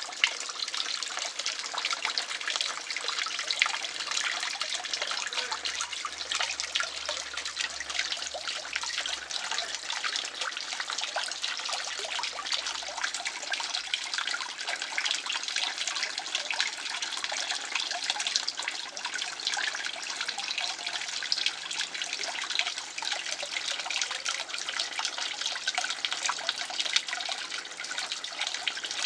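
Water in a garden fish pond splashing and trickling steadily, a dense continuous patter of small splashes with no pauses.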